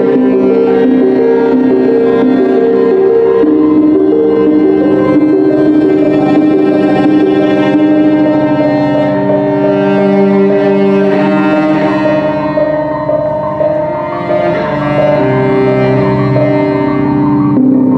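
Bowed cello holding long sustained notes, layered over a droning electronic keyboard played through effects pedals and amplifiers. The held tones shift to new pitches a few times, with a brief drop in loudness about three quarters of the way through.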